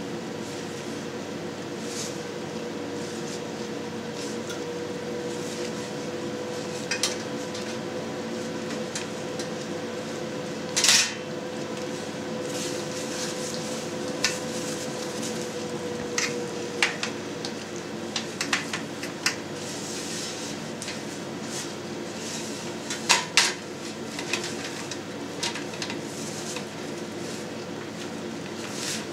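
Scattered light clicks and knocks of a plastic cheese mould being handled and pushed down on a stainless steel press tray, the loudest about eleven seconds in and again about twenty-three seconds in, over a steady low hum.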